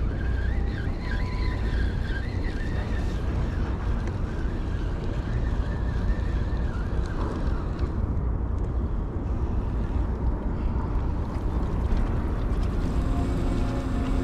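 Wind buffeting the microphone over a steady wash of surf noise.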